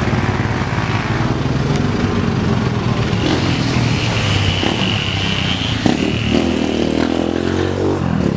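A motorcycle engine running close by, its pitch rising after about six seconds as it speeds up. A thin, high steady tone sounds for about three seconds in the middle.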